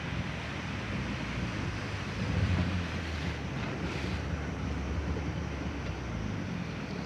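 Sea waves washing and breaking in the surf around a small boat, with wind rumbling on the microphone that swells a couple of times.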